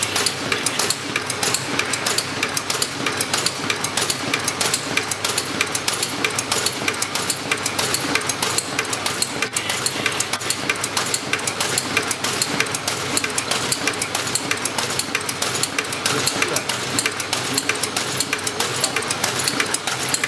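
Tea packaging machine running, a fast, continuous mechanical clatter of rapid clicks that stays even throughout.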